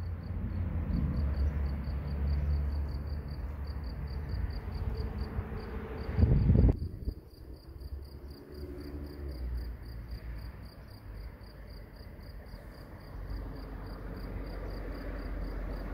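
An insect, likely a cricket, chirping steadily at about four high chirps a second. For the first few seconds a low rumble sits under it, swelling into a loud burst about six seconds in. Then the rumble cuts off abruptly, leaving the chirping over a quieter background.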